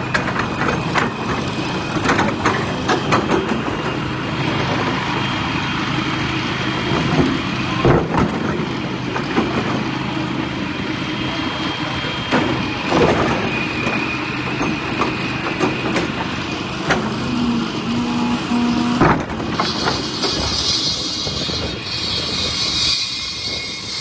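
Construction-site machinery: an excavator's diesel engine running steadily, with scattered knocks and clanks. About 20 s in, a loud high hiss joins in.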